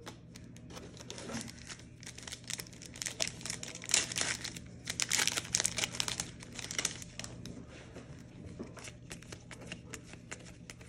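Foil wrapper of a Panini Contenders retail card pack crinkling and tearing as it is opened by hand, with the cards inside being handled. The crackling is loudest from about three to seven seconds in.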